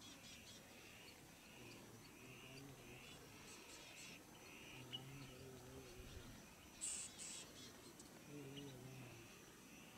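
Faint savanna ambience: a short high chirp repeated at an even pace, from a bird or insect, with a couple of sharper bird calls about seven seconds in. Three faint low, drawn-out sounds come and go underneath.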